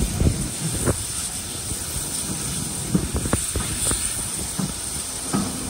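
Steam locomotive hissing steadily, with a few short knocks, several of them close together about three seconds in.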